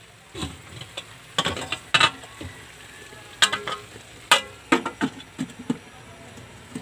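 Stirring pork and string beans in a wok: a utensil scraping and knocking against the pan at an irregular pace, over a low sizzle of frying.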